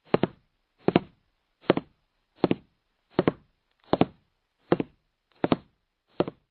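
Evenly spaced double thumps, a pair about every three-quarters of a second, like a heartbeat pulse, as the intro of a music track.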